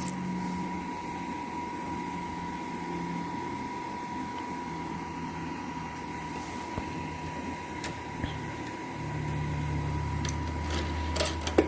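HP Pavilion desktop tower running with its fans humming steadily and a constant high whine alongside; the low hum grows fuller about nine seconds in, with a few light clicks near the end. The machine powers up and runs its fans even though it gives no picture on the monitor.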